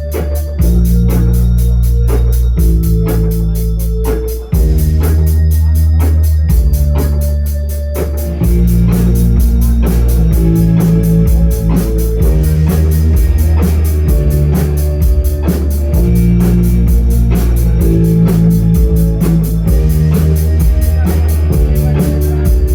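Live band playing loudly: sustained keyboard chords over a strong bass line and a steady drum beat, the sound growing fuller about eight seconds in.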